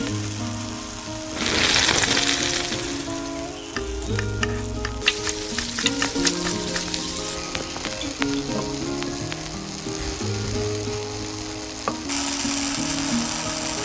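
Background music with a stepping melody over a sizzling hiss and scattered sharp clicks; the hiss is loudest about two seconds in, and the clicks cluster a few seconds later.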